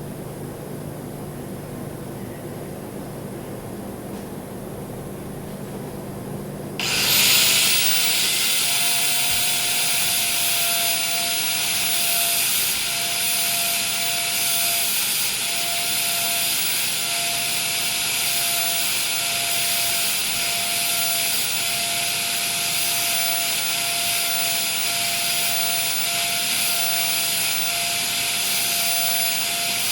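A low steady hum, then about seven seconds in a welding arc on stainless steel is struck suddenly and burns on as a loud, steady hiss with a constant tone in it.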